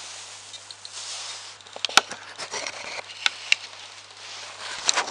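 Small 12 V cooling fan in a Krups beer tap running steadily just after power-up, showing the machine works on a stable 12 V supply. A few sharp clicks and knocks break in about two, three and a half, and five seconds in.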